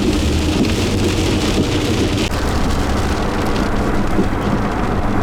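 Heavy rain beating steadily on a storm-chase vehicle, with the vehicle's engine and road noise running underneath.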